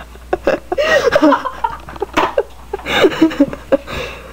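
Teenagers' voices laughing and chattering, with a few sharp knocks, one about two seconds in.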